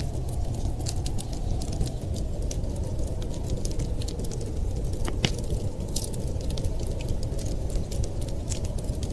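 Wood fire crackling in a fireplace: frequent irregular small snaps and pops over a steady low rumble.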